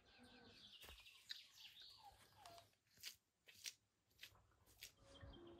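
Faint birdsong: high trills and short falling chirps, with four sharp clicks in the second half.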